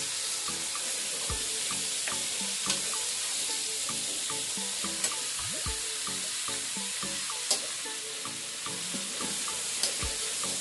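Moringa pods, sweet potato and squash sizzling as they are sautéed in a metal wok, stirred with a metal ladle that gives a few sharp clinks against the pan.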